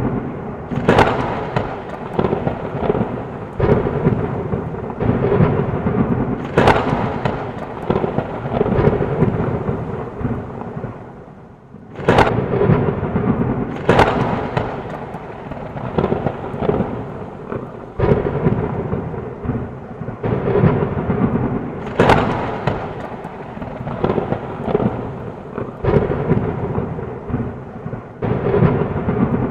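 Thunderstorm: steady heavy rain under a continuous low rumble of thunder, broken by several sharp thunder cracks. One crack comes after a short lull near the middle.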